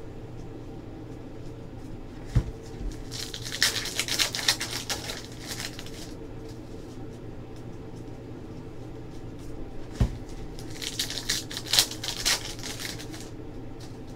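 A stack of basketball trading cards being flipped through and shuffled by hand, in two spells of rapid riffling of a few seconds each, each just after a single low thump, over a steady low hum.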